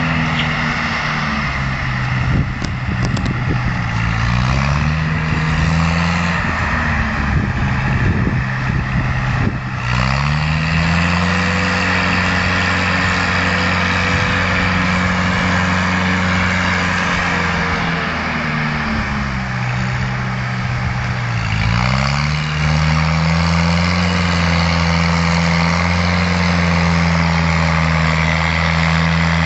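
Fiat 315 tractor's diesel engine running hard while pulling a subsoiler about 50 cm deep, its speed sagging and climbing back three times, about four, ten and twenty-one seconds in, as the load changes. Some scattered clatter in the first ten seconds.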